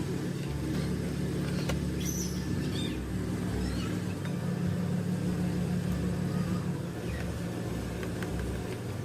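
Steady low hum of a running electric motor.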